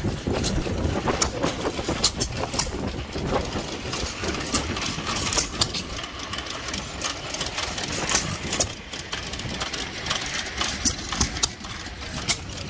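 Antique stationary gas engines running, with irregular sharp clicks and knocks over a steady mechanical background.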